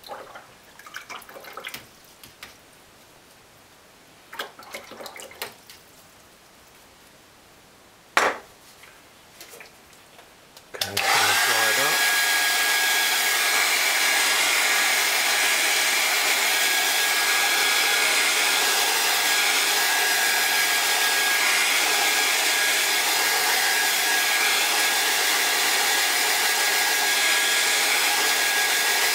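Handheld hair dryer switched on about eleven seconds in: it spins up, then runs steadily with a constant high whine over the rush of air, drying a watercolour painting. Before it come only a few faint rustles and one sharp click.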